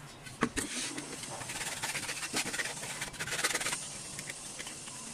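Sandpaper rubbed by hand along a wooden plank: a dry, scratchy scrubbing in several uneven strokes, with a few light knocks of wood.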